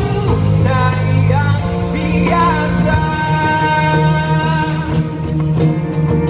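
Male singer performing a pop-rock song live into a handheld microphone over loud musical accompaniment, holding one long note from about three seconds in to about five seconds.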